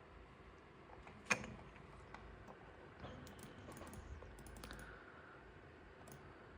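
Faint clicks and taps like typing: one sharper click about a second in, then a scatter of lighter ticks a couple of seconds later, over a low background hum.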